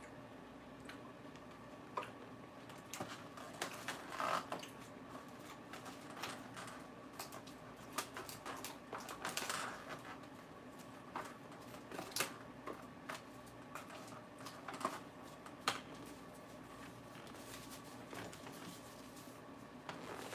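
Crisp lettuce being chewed close to the microphone: scattered, irregular crunches and clicks, heaviest around four and nine seconds in.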